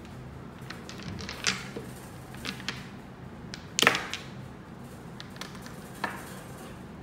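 Small polished stones clicking and tapping as they are set down and nudged into place on paper over a tabletop: a few light scattered knocks, with one sharper, louder knock about four seconds in.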